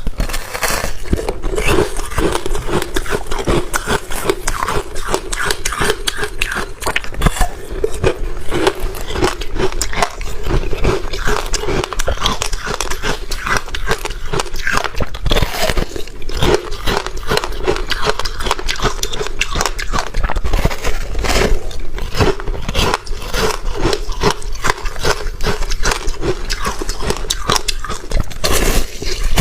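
Frozen passion fruit ice being bitten and crunched close to the microphone: a dense, rapid run of crisp cracks and crunches.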